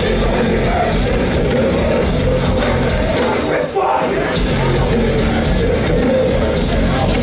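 Heavy metal band playing live and loud: distorted electric guitar and drum kit with shouted vocals, breaking off for a split second a little past the middle before crashing back in.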